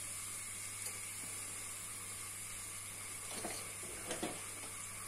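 Chicken pieces frying gently in oil in a stainless-steel pot, a faint steady sizzle over a low hum, with a couple of small knocks in the second half.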